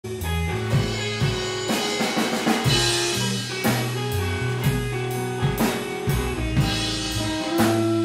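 Instrumental music with a steady beat: a drum kit with snare hits over bass and guitar.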